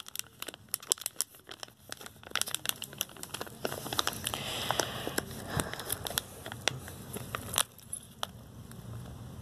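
Irregular crinkling and crackling close to the microphone, with many sharp clicks, a short rustling stretch about four to five seconds in, and one louder click near the end.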